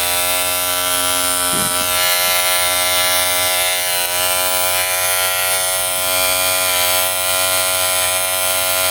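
Electric hair clipper running steadily on its low speed setting, a continuous even buzz.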